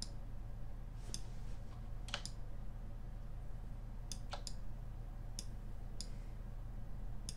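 Computer mouse clicking about ten times at uneven intervals, sharp short clicks, over a low steady hum.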